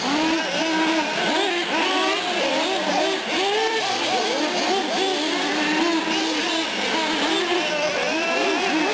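Several nitro-powered 1/8-scale RC short course trucks and a buggy running laps, their small glow engines revving up and dropping back over and over in many overlapping rising and falling whines.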